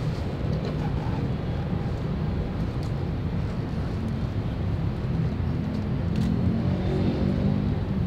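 Steady low rumble of city street traffic below, swelling a little louder near the end as an engine passes.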